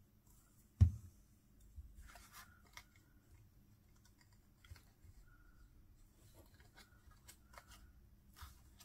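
One dull thump on the work table about a second in, then scattered small clicks and light rustling as die-cut cardstock pieces are handled and placed.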